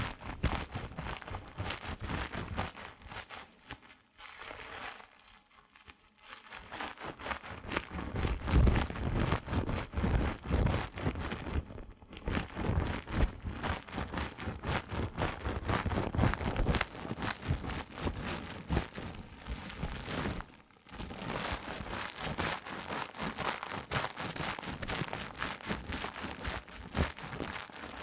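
Close-miked crinkling and rustling handling sounds of an ASMR haircut roleplay: a dense crackly stream of small ticks, broken by a few short pauses.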